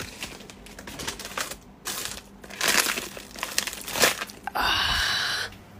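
Rummaging through belongings: irregular crinkling and rustling of things being handled, with a few knocks, then a steady rasping noise about a second long near the end.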